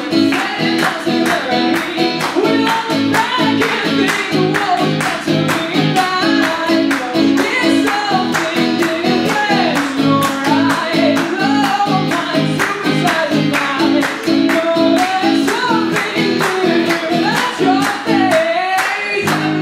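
A man singing over a steadily strummed acoustic guitar, a live folk-rock performance.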